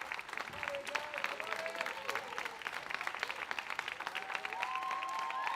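Audience applauding with dense, rapid clapping, mixed with shouts and cheers from the crowd.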